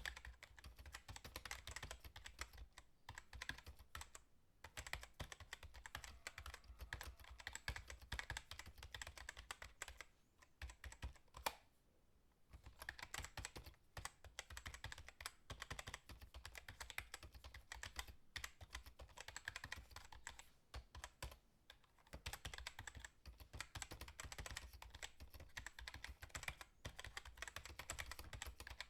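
Typing on a computer keyboard: fast runs of keystroke clicks with a few short pauses, the longest about ten seconds in.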